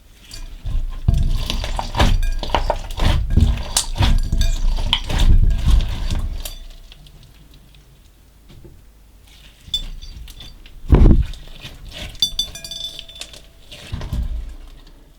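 Slime with small coloured beads being squished and stirred in a bowl: a dense run of wet clicks and pops for about six seconds. After a lull come one thump and a few light clinks against the bowl.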